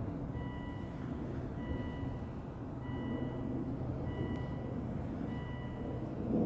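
Steady low rumble of a distant helicopter, with a vehicle's reversing beeper sounding about every second.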